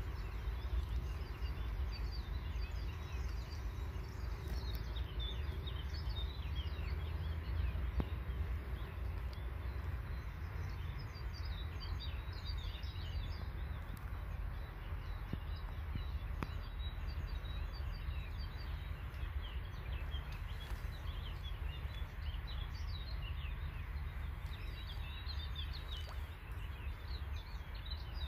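Small birds chirping, many short high calls scattered throughout, over a steady low rumble.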